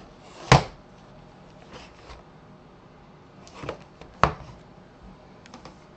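A shrink-wrapped cardboard box being handled and stood on a tabletop: two sharp knocks, about half a second in and about four seconds in, with a few fainter taps and clicks between and after.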